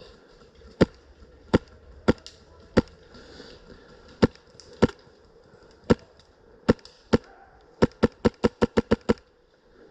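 Airsoft gun firing: single shots at uneven intervals, then a rapid string of about eight shots near the end.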